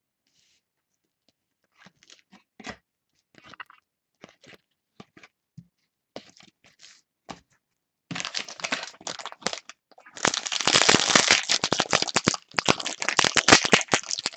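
Plastic trading-card pack wrapper being torn open and crinkled, a dense crackling that starts about eight seconds in and grows louder, after a few faint clicks of cards being handled.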